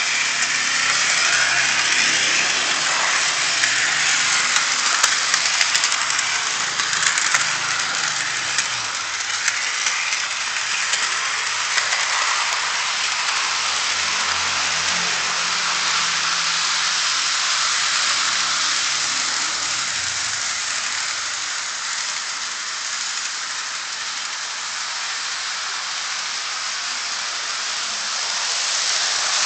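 Model steam locomotive and railway-gun car running on sectional track: a steady rattling hiss of the wheels and the locomotive's small motor, with scattered small clicks, louder near the end.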